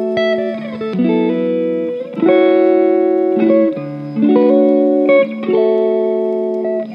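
Background music: clean electric guitar chords played in a gentle, changing progression.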